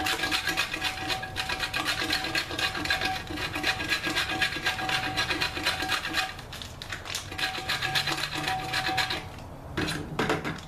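A bar of Fels-Naptha laundry soap being shaved into flakes with rapid, rhythmic rasping strokes, about four a second. The scraping pauses about six seconds in, resumes briefly, then stops.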